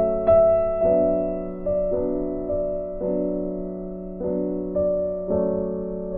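Background music: slow electric piano chords, each struck and left to fade, re-struck about every half second to a second.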